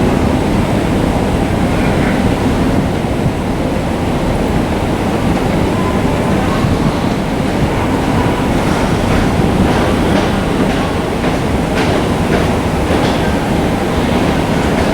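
Shinkansen train rumbling along the platform, with a run of wheel clicks over rail joints starting about halfway through.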